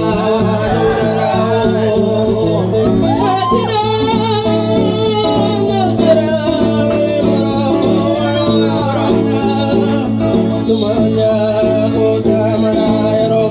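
A man singing a melody into a microphone with live acoustic guitar accompaniment.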